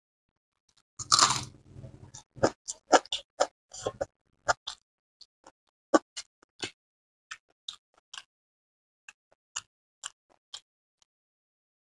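Close-up eating sounds of a person eating biryani by hand: irregular short wet clicks and smacks of chewing, fingers working the rice, with a denser crunching burst about a second in.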